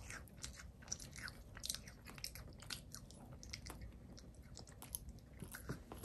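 A man biting into a soft bread bun filled with bean paste and butter, then chewing it: a string of quiet, short clicks from the mouth.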